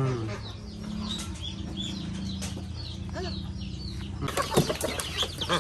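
Young ducks and chicks peeping in scattered short, high calls over a low steady hum. A little over four seconds in, the sound turns suddenly louder into a dense chorus of peeping and calling from the flock.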